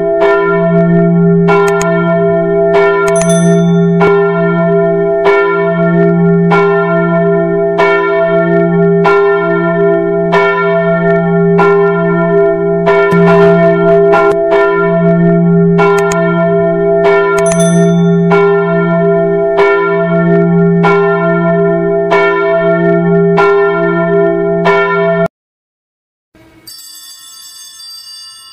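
A single church bell rung in even strokes, about one a second, each stroke ringing on into the next. It cuts off suddenly near the end, and after a short gap a much quieter run of steady chime tones begins.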